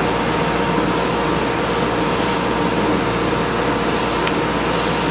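Steady hum and hiss of a fan or air conditioner running, with a faint click about four seconds in.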